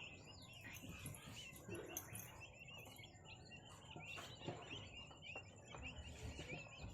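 A flock of chicken chicks peeping: many short, high chirps overlapping continuously.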